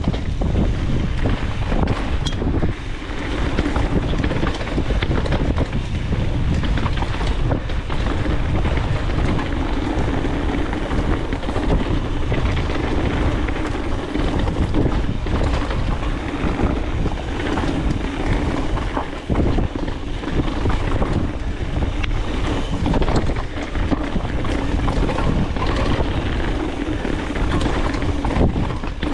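Mountain bike descending a dirt trail at speed: rushing wind buffeting the camera microphone over the rumble of tyres on the ground, with frequent rattles and knocks from the bike over rough terrain.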